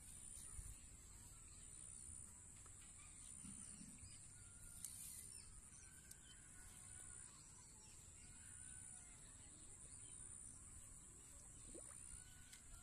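Faint rural outdoor ambience: a steady high-pitched insect drone that swells and fades, with a few short bird calls.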